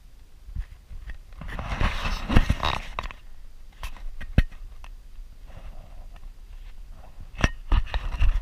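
Close rustling and scraping handling noise on a GoPro camera. It swells about two seconds in, with a few sharp knocks about four seconds in and again near the end.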